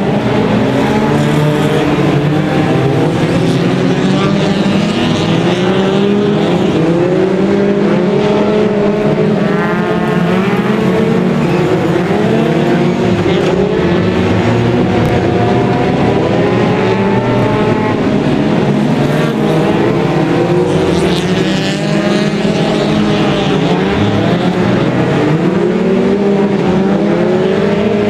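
A pack of winged stock-car racing cars running flat out, several engines revving up and down over one another as the cars pass and lift off for the turns.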